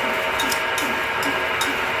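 Milling machine running under load as a 40 mm drill bit bores a hole in metal: a steady gear-driven whine with about five sharp ticks.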